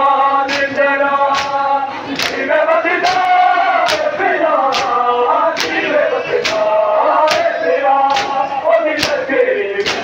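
A crowd of men chanting a noha, a Muharram lament, in unison. The rhythmic slaps of matam, open hands beating on bare and clothed chests, keep time a little more than once a second.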